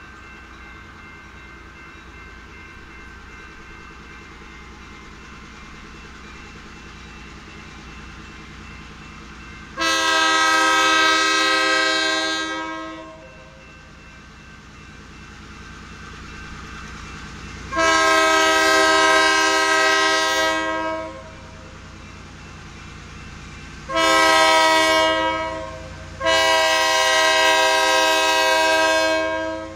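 Diesel freight locomotive's air horn sounding the grade-crossing signal: two long blasts, a shorter one, then a final long one. Beneath it is the low rumble of the approaching train.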